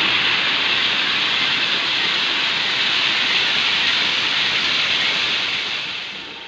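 Water rushing and splashing as it pours out from beneath a traditional water-powered flour mill (gharat) and runs down a small channel: a steady rush that fades away near the end.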